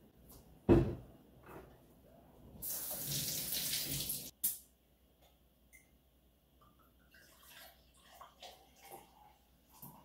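A sharp knock about a second in, then a short rush of running water from the tap for about two seconds that cuts off with a click. Near the end there is faint trickling as a drink is poured into a stainless-steel beverage chiller.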